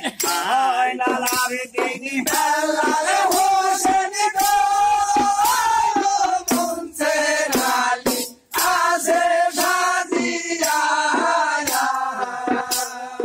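Group of men singing a Bengali village folk song (pala gaan) in chorus, their voices bending and holding long notes. A double-headed hand drum beats sharp strokes through the singing, and the singing breaks off briefly about eight seconds in.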